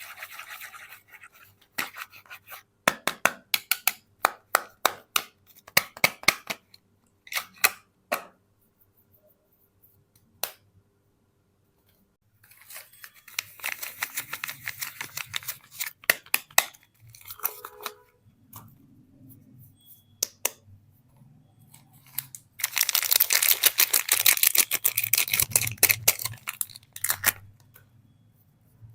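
Soap wrapper being opened: the packaging crinkling and tearing in spells of sharp crackles, with a quiet pause partway through. The densest, loudest crinkling comes near the end.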